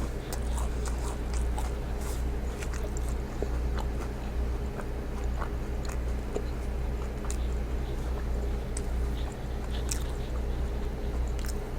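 A person chewing and biting food close to the microphone: soft, irregular mouth clicks and smacks, over a steady low hum.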